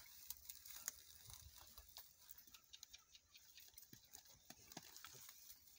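Faint, irregular crunching and rustling: a donkey munching and pulling at dry grass and straw.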